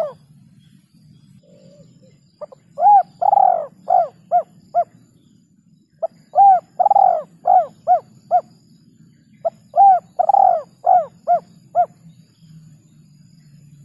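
Spotted dove (tekukur) cooing: three repeated phrases, each a run of about six to seven short, arched coos, the second coo longest and loudest, over a faint low hum.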